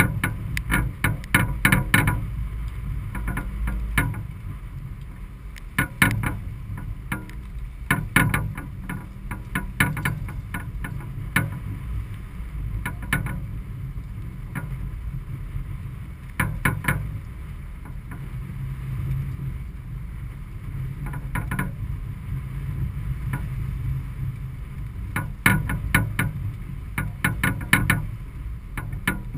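Whitby 42 sailboat under way: a steady low rush of wind and water along the hull. Clusters of sharp knocks and rattles break in at irregular moments, loudest near the start and again near the end.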